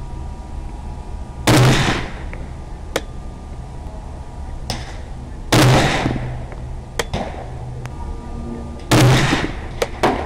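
Three rifle shots from a semi-automatic .308 Winchester rifle, fired about four seconds apart, each a sharp report with a short decay; the action cycles normally between shots.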